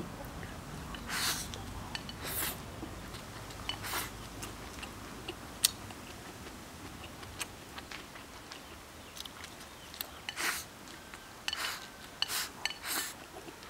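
A person eating rice and stir-fry from a bowl with chopsticks: short, sharp scraping and mouth sounds come in scattered bursts as food is pushed from the bowl's rim into the mouth, with a single sharp click about five and a half seconds in.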